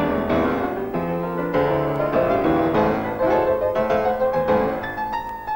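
Piano music, with several notes sounding together and changing quickly.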